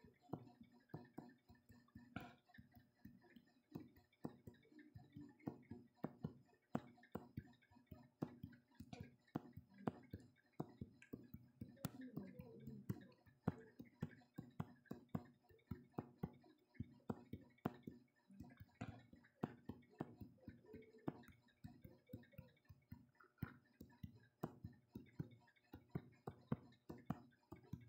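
Faint, irregular clicks and taps, about two or three a second, over a low, quiet hum.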